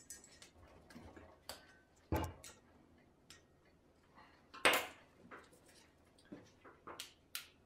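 Light, scattered clicks and taps of a small screwdriver and handled metal against a brake caliper while a square-section piston seal is worked into the groove in its bore. A couple of louder knocks stand out, the loudest a little past halfway.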